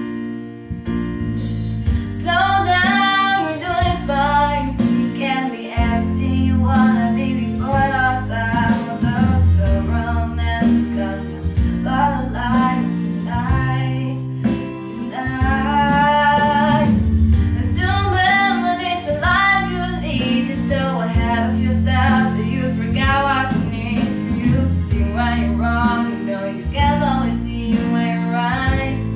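A young woman singing solo over steady instrumental accompaniment; her voice comes in about two seconds in and carries on in phrases of a few seconds with short breaks between.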